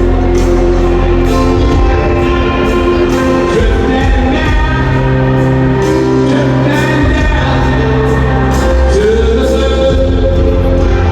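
Live rock band playing a slow, gospel-tinged song with sung vocals holding long notes over a steady bass, recorded from the crowd in a stadium.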